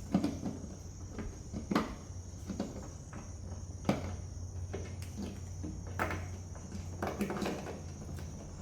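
Irregular small clicks and knocks of plastic parts being handled as LED bulb sockets are fitted back into a pickup's taillight housing, over a steady thin high tone in the background.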